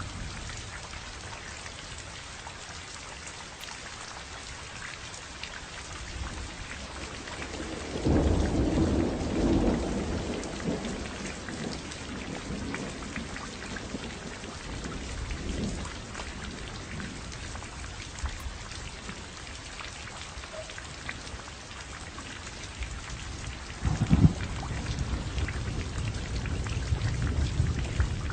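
Steady rain falling, with a low rumble of thunder about eight seconds in and another starting near the end that rolls on.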